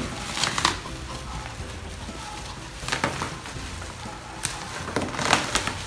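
Plastic bubble wrap crinkling and crackling as it is cut with scissors and pulled, in several short bursts, the loudest and longest near the end, over faint background music.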